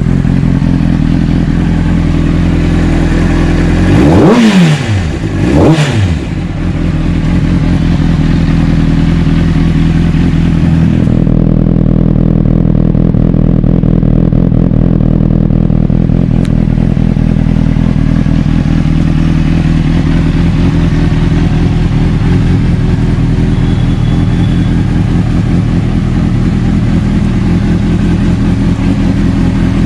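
Honda CBR600RR inline-four breathing through a Leo Vince aftermarket slip-on muffler, idling steadily. It is blipped twice, about four and six seconds in, the revs rising sharply and falling back, then it settles to idle again.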